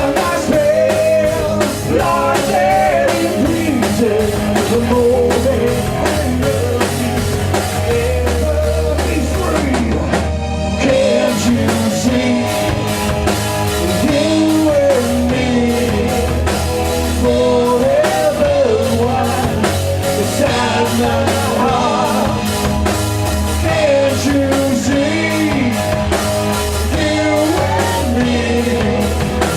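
Live rock band playing: drum kit and guitars over a steady bass, with a melodic lead line bending up and down above them.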